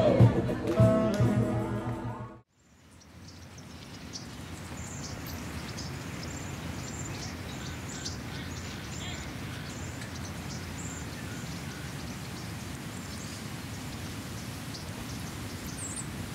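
Street musicians playing guitar-led music that cuts off suddenly about two seconds in. Then a steady outdoor street hum with small birds chirping again and again.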